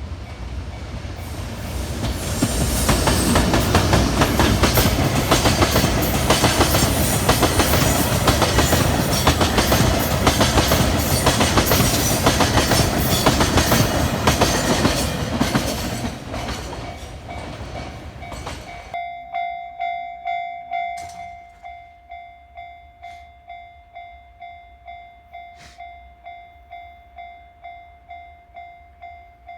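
A freight train crossing a level crossing, its wagon wheels clattering over the rail joints for about fifteen seconds before the sound fades away. A level crossing alarm then rings steadily, about one and a half strokes a second.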